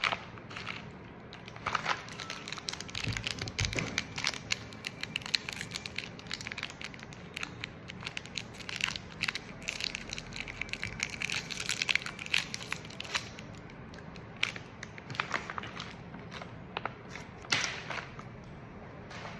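Irregular crinkling and crackling made of many sharp clicks, thickest through the middle stretch, with a low thump about three and a half seconds in.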